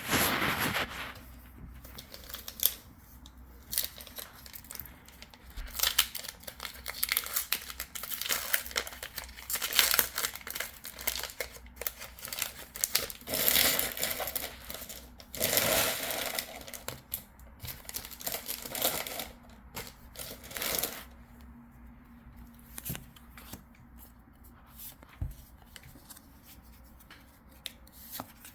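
Foil Pokémon booster pack wrapper being crinkled and torn open, in repeated bursts over the first twenty seconds or so. After that come quieter handling noises and soft clicks as the cards are handled.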